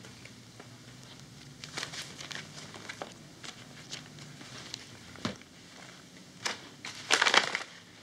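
Rustling and crinkling handling noises with scattered soft clicks, loudest in a burst about seven seconds in.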